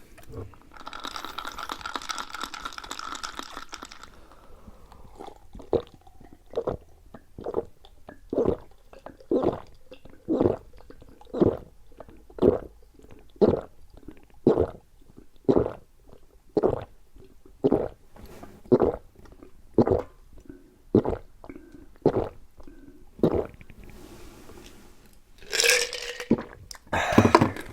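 A person gulping a drink in a long run of swallows close to the microphone, about one a second. A hissing noise lasts about three seconds before the gulping starts, and two louder sounds come near the end.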